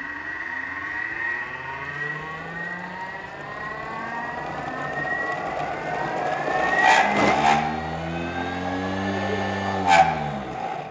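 Thermomix TM6 blending softened lotus seeds into a paste. Its motor whine climbs steadily in pitch as the speed is turned up, then falls as the speed is turned back down from about eight seconds in, with a few sharp clicks near seven seconds and one near ten seconds.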